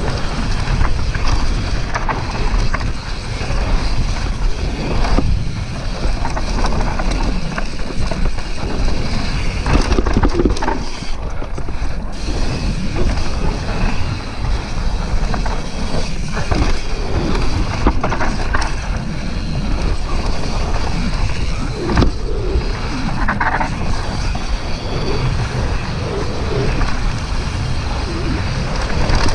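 Propain Tyee full-suspension mountain bike ridden fast down a dirt trail, heard from an on-board camera: steady wind noise on the microphone, tyres rolling on dirt, and the chain and frame rattling and knocking over bumps.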